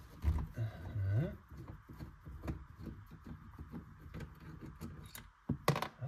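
Light clicks and rattles of small metal parts being handled under a car's dashboard while a choke cable assembly is fitted, with a sharper cluster of clicks near the end.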